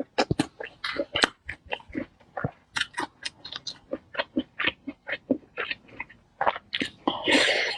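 Close-miked eating: a quick run of short crunches and chewing sounds, several a second, with a longer, louder noise near the end.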